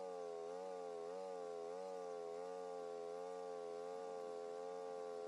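A small engine running steadily and faintly, its pitch wavering slightly.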